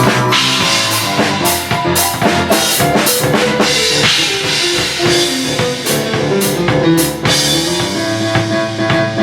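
A drum kit with many cymbals played in a steady groove, with regular drum hits and cymbal crashes, over a piano playing a melody.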